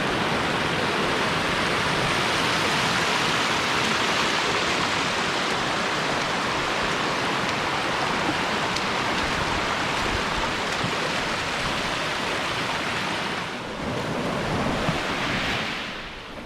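Steady rushing of water with no distinct events, dipping briefly about three-quarters of the way through and fading away at the very end.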